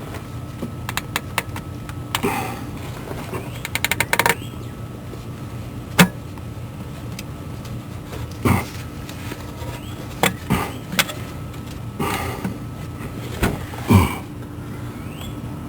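Hand tools working on a car's underside: a quick run of clicks about four seconds in and scattered sharp metal clinks and knocks, over a steady hum.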